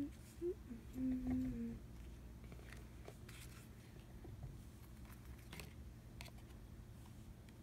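Pokémon trading cards handled on a tabletop: a few faint, soft brushes and taps as cards are lifted and laid on a pile. A person hums briefly in the first two seconds.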